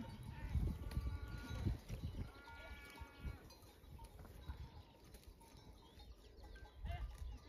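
A flock of small livestock bleating several times in the first few seconds, over a low, uneven rumble.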